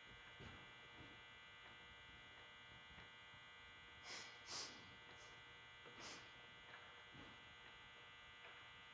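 Near silence: room tone with a steady electrical hum, and a few faint brief noises about four to six seconds in.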